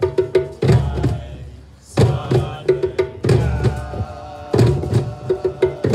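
Nyabinghi drumming on hand drums and a bass drum. A deep stroke falls about every 1.3 s, with quicker, lighter hits between the strokes.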